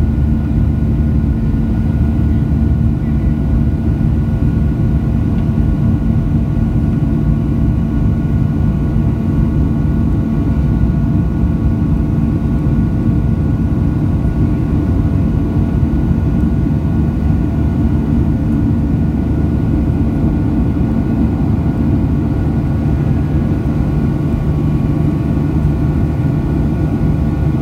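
Cabin noise of a Boeing 737-700 climbing after takeoff: its CFM56-7B turbofan engines at climb power make a steady, loud rumble with several steady tones above it.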